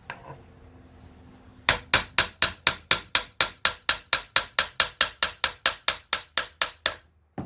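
Hammer rapidly tapping the axle shaft of a Murray riding mower's transaxle to drive the axle out of the split case: a steady run of about two dozen blows, four or five a second, each with a metallic ring, starting a couple of seconds in and stopping just before the end.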